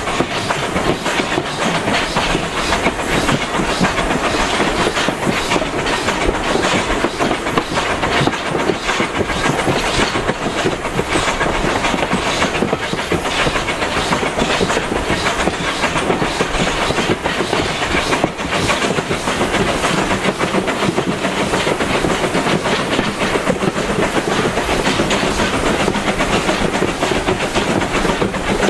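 Passenger train running along the line: the carriage's wheels clatter and rattle over the rail joints with a steady rumble.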